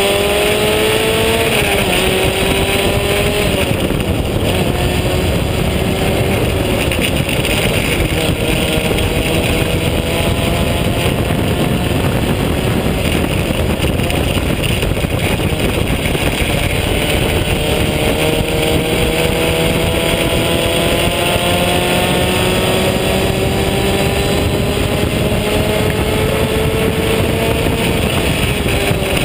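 Onboard sound of an open-wheel race car at speed: its engine note over a steady rush of wind in the open cockpit. The pitch drops twice in the first few seconds, holds low for a while, then climbs slowly for about ten seconds before falling off near the end.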